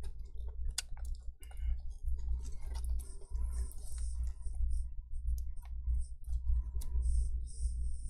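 Irregular small clicks and light knocks of plastic and metal parts being handled as a laptop's heatsink-and-fan assembly is fitted onto the motherboard, with a steady low hum underneath.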